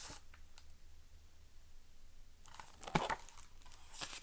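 Paper pages of a hardcover picture book rustling and crinkling as it is handled and a page is turned, with a soft knock about three seconds in and more rustling near the end.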